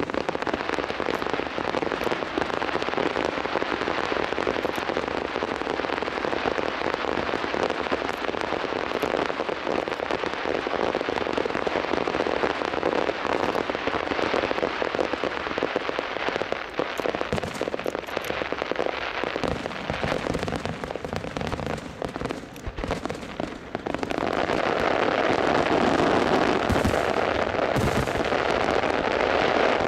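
Aerial fireworks display: a dense, continuous barrage of shell bursts and crackling. It thins out for a few seconds about twenty seconds in, then builds again to a louder, heavier barrage.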